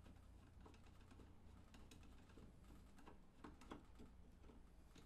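Faint clicks and light scrapes of a flat-head screwdriver turning a brass disc inside a water welder's metal booster block, with a few louder clicks about three and a half seconds in.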